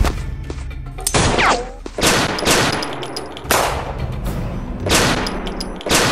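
Handgun shots in a film shootout, about six sharp cracks at uneven intervals, each ringing out briefly. A falling whine trails one of the shots in the first half.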